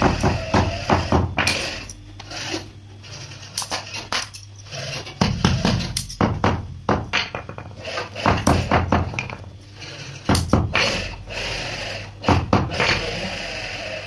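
Wooden mallet repeatedly pounding cloth work gloves laid flat on a concrete floor, knocks coming in irregular runs of quick blows with short pauses between, over a steady low hum.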